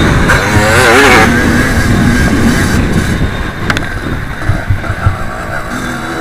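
Kawasaki KX85 two-stroke dirt bike engine revving hard, then backing off about three seconds in, with a sharp click and a few low knocks after that.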